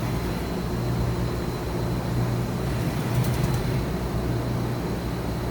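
2013 Mazak HCN 4000-III horizontal machining center's Y-axis traversing at 50% rapid: the axis drive and ball screw run with a steady low hum while the way covers slide. The machine sounds healthy, with the ball screw running smoothly.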